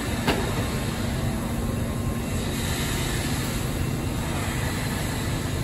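New York City subway train moving through an underground station, a steady, even noise of wheels on rail and running gear, with one faint click just after the start.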